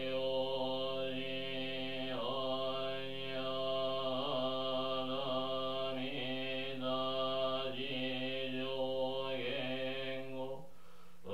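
A Jodo Shinshu Buddhist priest chanting a sutra in a steady, near-monotone male voice, with one short pause for breath near the end.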